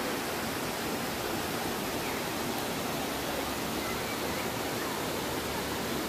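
Steady rush of a rocky mountain stream running down below a waterfall, water splashing over stones with an even hiss.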